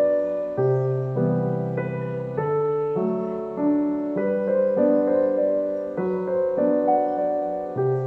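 Background piano music, its chords changing at a steady pace a little more than every half second.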